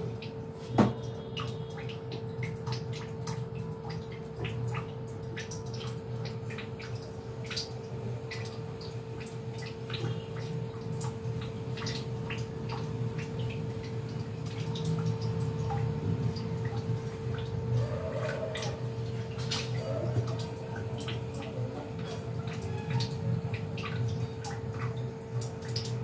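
Steady background hum with a constant tone, and many small scattered clicks and taps; a single sharp knock sounds about a second in.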